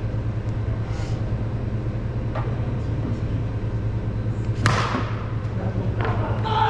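A wiffle ball struck with one sharp, hollow plastic crack about four and a half seconds in, with a couple of fainter clicks earlier, over a steady low hum.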